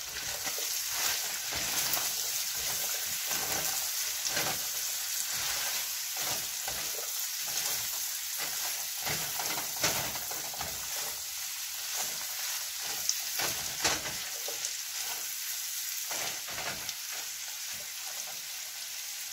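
Chayote, green beans and shredded chicken sizzling in a nonstick frying pan, a steady hiss, while a silicone spatula stirs and turns them with irregular scraping and tossing sounds.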